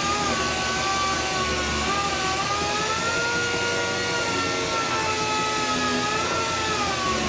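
Electric power tool motor running with a whine that slowly wavers in pitch, over a steady hiss.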